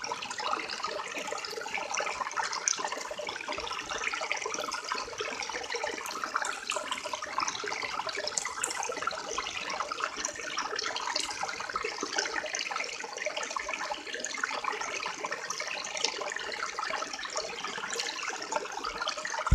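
River water flowing, a steady rushing babble.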